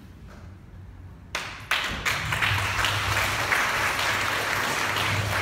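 Audience applauding, starting about a second and a half in.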